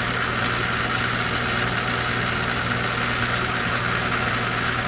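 Small lathe running steadily, with a light tick about every three quarters of a second as the work turns down a blank to diameter.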